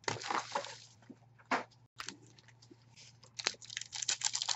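Foil trading-card pack wrappers crinkling as they are handled and worked open: a short rustle at the start, another about a second and a half in, then a quickening run of crackles near the end.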